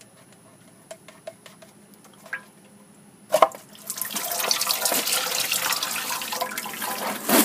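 A few faint clicks, then a sharp pop about three and a half seconds in as the transmission filter is pulled free of the Ford 5R110W valve body. Automatic transmission fluid then gushes out in a steady pour.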